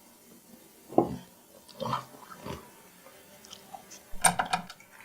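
Dishes and tableware being handled: a dull knock about a second in, a few softer taps, then a quick run of sharp clinks near the end.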